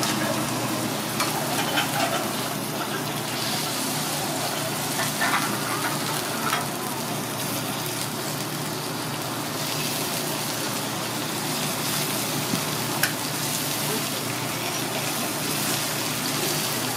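Kobe beef steak sizzling on a teppanyaki griddle: a steady frying hiss, with a few light clicks of the chef's knife and fork against the steel plate.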